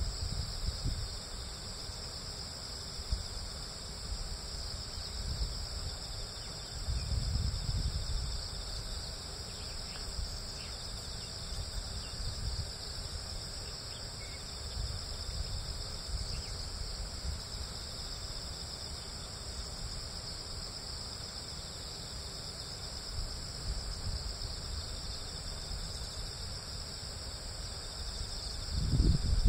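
Steady chorus of insects, a continuous high-pitched trill, over a low rumble that swells about a quarter of the way in and again near the end.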